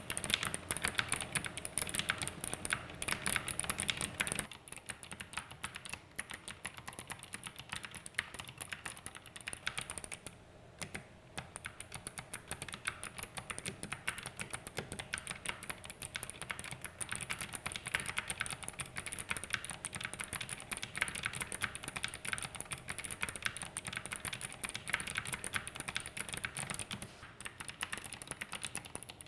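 Fast, continuous typing on an ABKO Ice Cube gaming keyboard with Kailh optical clicky switches and ice-cube keycaps: a dense stream of sharp key clicks, with a brief pause about ten seconds in.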